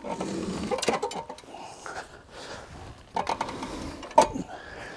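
Handling noise as the wood chipper is turned round by hand: scraping, rattling and a few knocks, the loudest a sharp knock about four seconds in.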